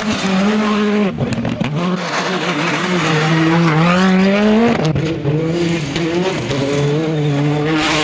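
Turbocharged four-cylinder R5 rally cars revving hard through a gravel corner one after another, with the revs climbing steeply toward about five seconds in, then dropping. Stones and gravel crackle under the tyres.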